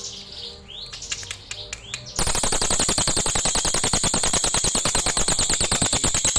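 Crested jay (cililin) giving a few short falling chirps, then about two seconds in breaking into a loud, rapid rattle of evenly spaced notes, many to the second, which stops abruptly at the end.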